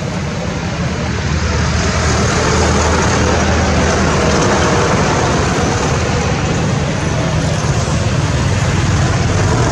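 Steady road-traffic noise: a vehicle engine humming low under a wide hiss, growing a little louder in the first couple of seconds.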